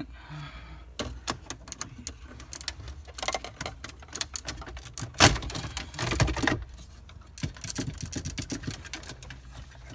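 Clips of a chrome dash trim strip on a 2015 Cadillac Escalade clicking and snapping as it is pried loose with a plastic pry tool. The clicks come in uneven runs, with a louder snap about five seconds in and a quick run of ticks near the end.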